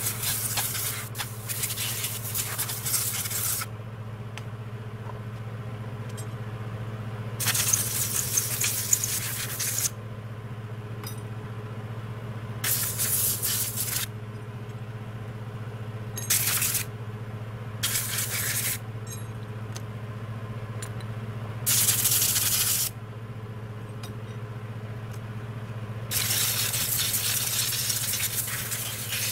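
Compressed-air blow gun blasting dust off scooter CVT clutch parts: about seven separate hisses, each lasting from half a second to three seconds, with pauses between them, over a steady low hum.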